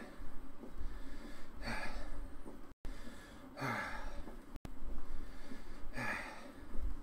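A man breathing hard while pedalling an exercise bike: three heavy exhalations about two seconds apart, each with a short falling sigh.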